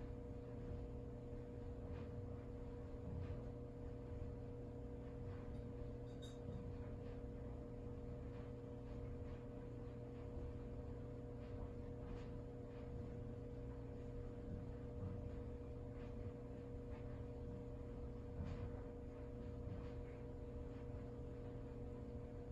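Quiet room tone: a steady hum holding one constant tone, with a few faint ticks here and there.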